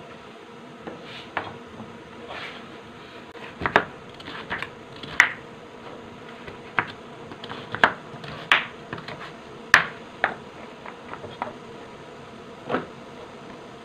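Kitchen knife dicing sweet potato on a plastic cutting board: sharp, irregular knocks of the blade striking the board, roughly one every second.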